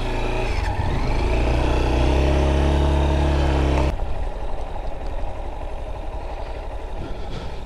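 Motorcycle engine running steadily, its pitch edging up slightly. About four seconds in it cuts off abruptly, leaving a quieter, rough low rumble.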